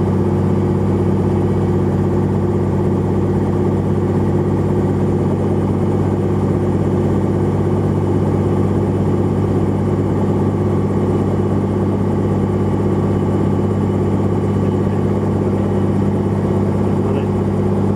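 Robinson helicopter's engine and rotor running steadily on the ground, heard from inside the cabin as a loud, even drone with a steady hum.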